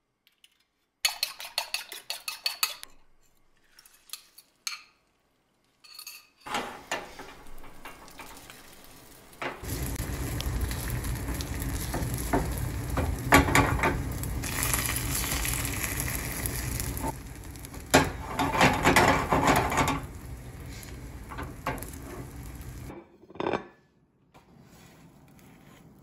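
Eggs sizzling in a nonstick frying pan over a gas burner, with a silicone spatula scraping and tapping against the pan. A quick run of clicks and clinks comes first. The sizzle cuts off suddenly near the end.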